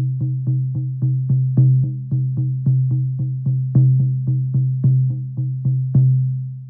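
Shamanic hand drum struck with a handmade beater in a steady beat of about four strokes a second, every fourth stroke accented; the drum's deep tone rings on between strokes and fades out after the last stroke near the end.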